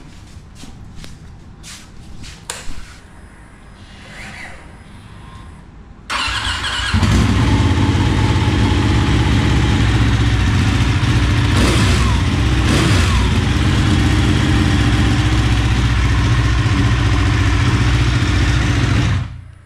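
Ducati 1199 Panigale S's Superquadro 1198 cc L-twin engine started from cold: a few clicks, then it fires up about six seconds in. It runs steadily and loudly, then cuts off suddenly near the end.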